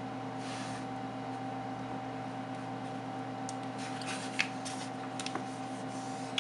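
Steady low hum made of several fixed tones, with faint clicks and rustles from a smartphone being handled, and one sharper tap a little after four seconds in.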